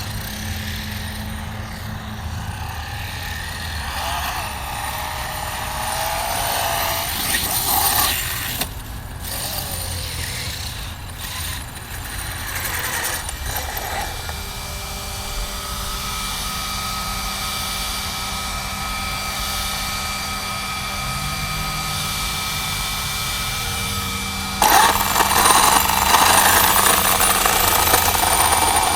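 Electric RC truck driving: electric motor whine and tires churning over the ground, with a steady pitched whine through the second half and a louder rough stretch near the end.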